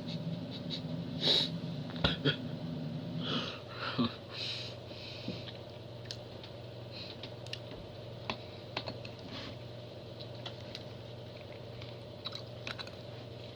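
Close-up eating sounds: scattered soft clicks, taps and mouth noises of chewing food, denser in the first five seconds, over a steady low hum.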